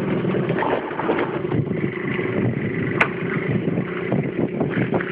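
Small 50 cc scooter engine running under way, a steady drone with wind rushing over the microphone. A single sharp click about three seconds in.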